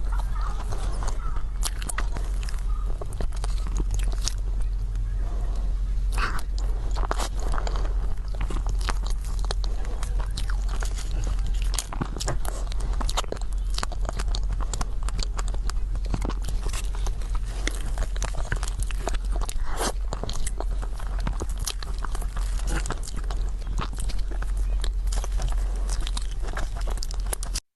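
Close-miked ASMR eating of cake: repeated bites and chewing, with many small wet mouth clicks, over a steady low hum.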